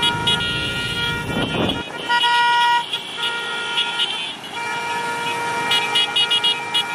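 Several motorcycle horns honking at once from a convoy of boda-boda motorcycles, some held as long notes and others tooted in quick short beeps, over engine and road noise.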